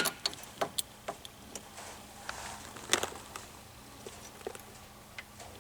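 Sparse light clicks and taps at the dashboard of a 1962 Chrysler 300 as the repaired AutoPilot cruise-control unit is tried under power, its knob coming out and staying out. The sharpest click is right at the start and another comes about three seconds in, over a faint steady hum.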